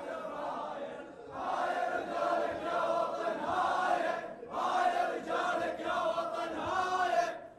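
A large crowd of men chanting together in unison, in repeated phrases of about three seconds with short breaks between them.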